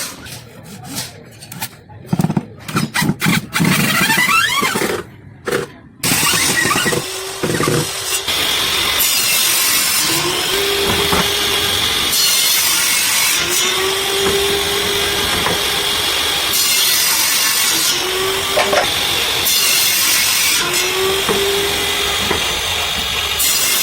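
A power tool running steadily as it works wood, with a constant high whine, after several seconds of wooden knocks and clatter at the start.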